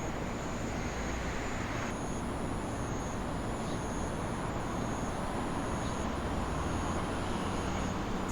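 Steady vehicle rumble, growing slightly louder in the second half, with a thin high steady tone above it.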